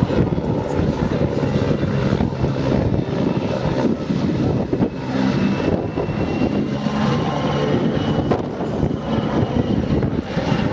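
PZL W-3A Sokol helicopter's twin turboshaft engines and main rotor running steadily through a banking display manoeuvre, with a deep rotor throb and a faint high turbine whine that drifts up in pitch through the middle.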